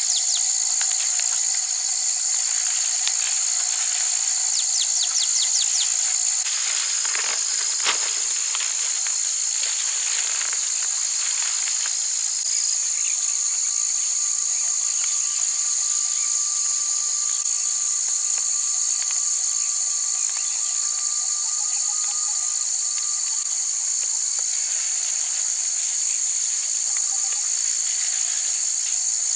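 Steady, high-pitched chorus of insects droning without a break, with a brief knock about eight seconds in.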